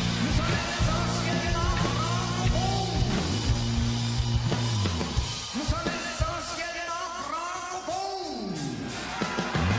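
Live rock band playing, with drums, guitar and bass under a singer's voice. Past the middle the bass drops away for a few seconds, leaving the voice and higher parts, and the full band comes back in near the end.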